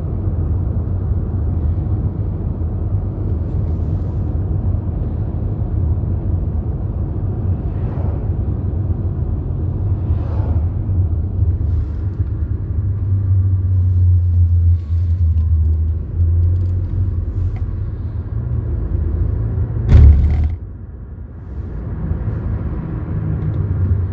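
A car driving on the highway, with steady low road and engine rumble. Near the end there is one loud, sharp thump, after which the noise briefly drops.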